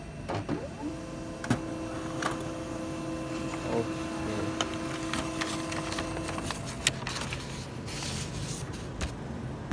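HP LaserJet MFP 135a laser printer printing a report page: a steady motor hum starts about a second in and stops after about six and a half seconds, with a few clicks, followed by a rustle of paper near the end.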